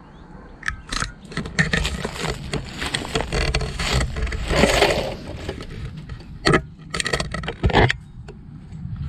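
Rustling, crackling and scraping of dry brush and twigs as someone pushes through overgrowth, the branches rubbing against the camera, with footsteps; two heavier knocks near the end.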